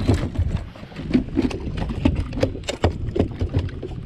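Irregular sharp knocks and clatter aboard a bass boat, several a second, over a steady low hum.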